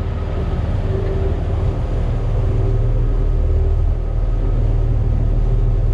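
A large party fishing boat's engines running steadily under way, a low, even drone.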